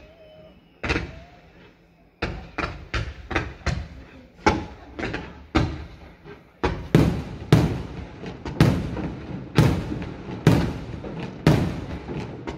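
Fireworks going off: a rapid series of sharp bangs, about two to three a second, starting two seconds in after a brief lull. From about seven seconds in the bangs grow louder, at about two a second.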